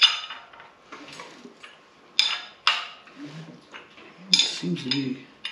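Sharp metallic clinks and clanks as a freshly built LS V8 is rolled over by hand with a breaker bar on the crankshaft bolt, checking that the new cam and valvetrain turn freely. The clinks come near the start, twice a little after two seconds in, and once more loudly about four seconds in.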